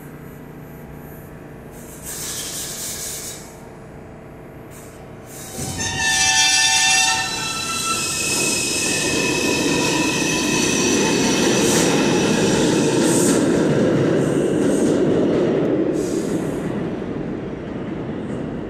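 New York City subway train passing through the station: a short hiss about two seconds in, a horn blast about six seconds in, then a loud, sustained rumble of steel wheels on rail with high squealing tones that eases a little near the end.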